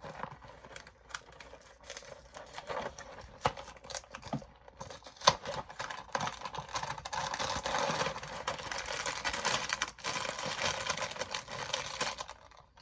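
Package of Cheez-It crackers being opened by hand: scattered clicks and rustles, then from about five seconds in a continuous crinkling of the plastic packaging.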